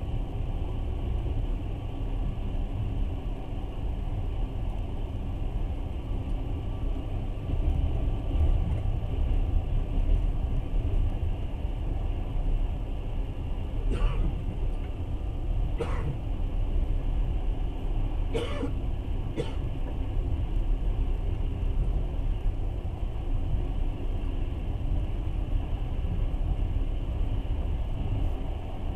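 Passenger train running, a steady low rumble heard from inside the carriage. Four brief, sharp sounds come about halfway through.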